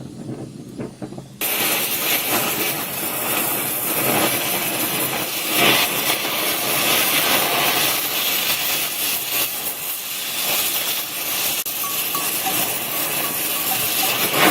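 Oxyacetylene torch with a welding tip burning with a steady, loud hiss, starting suddenly about a second and a half in.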